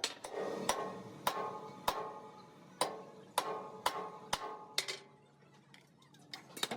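Hammer striking metal in a series of sharp, ringing blows, a little under two a second, thinning out and going quieter near the end.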